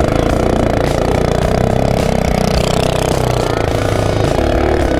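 Predator 212cc single-cylinder four-stroke engine of a Baja mini bike running under throttle while the bike spins donuts in snow, its revs rising and falling a little and dipping slightly near the end.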